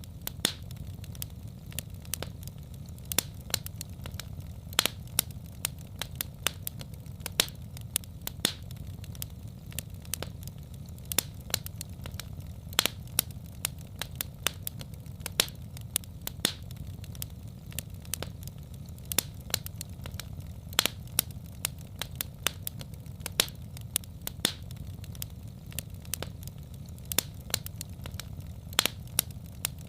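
Wood fire crackling: sharp, irregular pops and snaps over a steady low rumble of burning.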